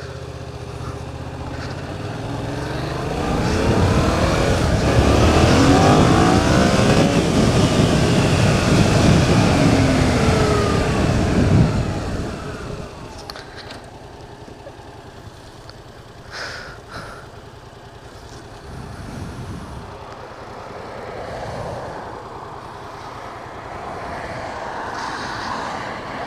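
Yamaha FZ-07's 689 cc parallel-twin engine pulling away and accelerating, its revs rising through the gears. The sound drops off suddenly about twelve seconds in to quieter, steady running.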